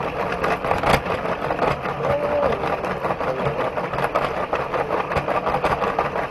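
Motorised LEGO train running, heard from inside the carriage: a steady motor hum under rapid clicking and rattling of the wheels on plastic track, with one sharper click about a second in.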